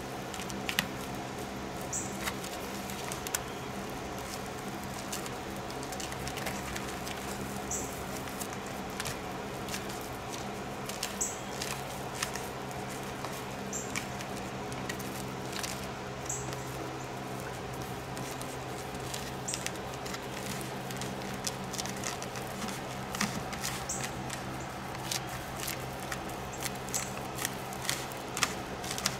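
Scattered light clicks, taps and crinkles from handling and pressing foil-faced foam insulation, with a few brief high-pitched squeaks, over a steady low hum.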